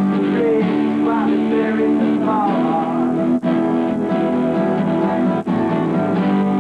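Acoustic guitars playing together in a jam, chords ringing steadily under a curving melody line. The sound drops out briefly twice.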